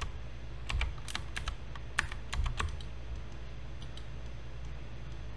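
Computer keyboard keys and mouse buttons clicking in a quick cluster from about a second in to nearly three seconds, then a few scattered clicks, over a steady low hum.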